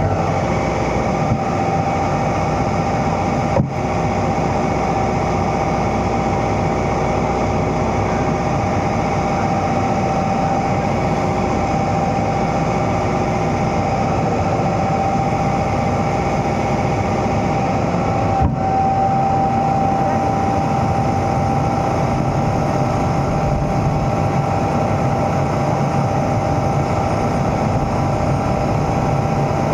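Excavator's diesel engine running steadily under work, with a constant high whine over it. The sound breaks off for an instant twice, about four seconds in and again past the midpoint.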